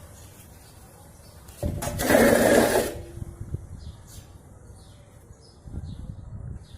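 Washing machine running with a low, uneven rumble. About two seconds in, a loud harsh burst lasts about a second, and low knocking returns near the end.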